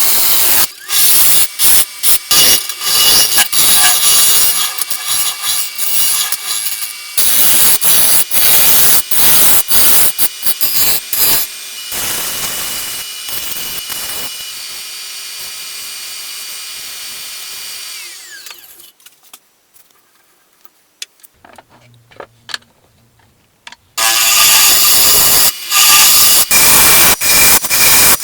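Woodturning on a lathe: a tool cutting a spinning wooden workpiece, heard in short choppy bursts with abrupt cut-offs. A quieter, steadier stretch ends in a falling tone at about 18 seconds, then comes a quiet gap, and loud cutting resumes about 24 seconds in.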